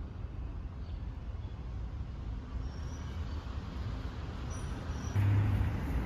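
Outdoor city street ambience: a steady low rumble of road traffic, growing louder about five seconds in.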